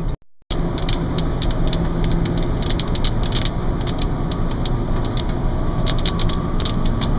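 Heavy raindrops clicking and tapping on a car's body and windshield, heard from inside the cabin over the steady rumble of the engine and road. The impacts are heavy enough that they are suspected to be hail. The sound drops out briefly just after it starts.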